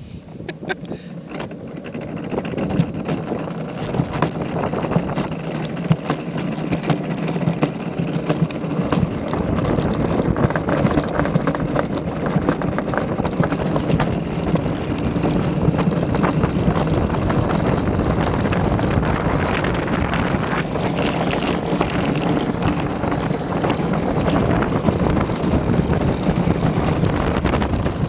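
Wheeled luge cart rolling fast down a concrete track: a steady rumble with constant small rattles and knocks from the bumps, mixed with wind on the microphone. It builds over the first few seconds as the cart picks up speed, then holds.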